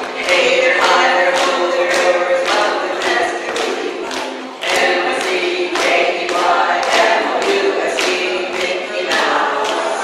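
Group of ukuleles strummed in a steady beat while several voices sing a song together.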